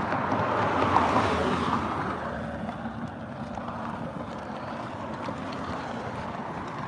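Road traffic: a car passes close by, its tyre and engine noise swelling about a second in and fading over the next two seconds, then a lower, steady rush of traffic.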